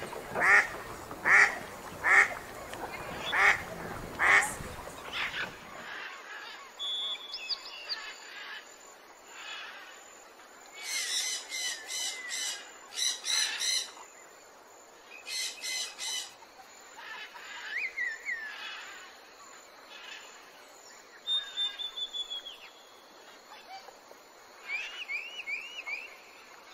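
A duck quacking in a steady series, about one loud quack every 0.7 seconds, for the first five seconds or so. The quacking then stops abruptly, giving way to quieter high peeps and chirps, some rising in short arcs, typical of ducklings, over a soft steady hiss.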